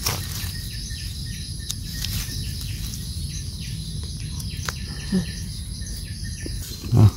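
Forest insects and birds calling: a short call repeats about twice a second over a steady high insect drone. Low rumbling runs underneath, with a dull thump just before the end.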